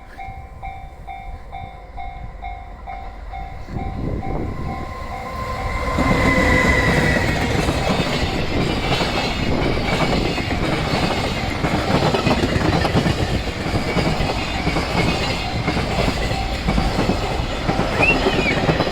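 Japanese level-crossing warning bell ringing in an even pulse, about two strokes a second. About six seconds in, a freight train arrives and passes loudly, with steady rumble and wheel clatter on the rails that drowns out the bell.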